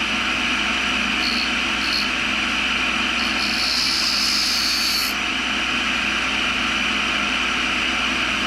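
Grinder motor running steadily while a small drill bit is hand-ground on the wheel: two brief touches of the bit to the wheel between one and two seconds in, then a longer grinding pass from about three to five seconds in.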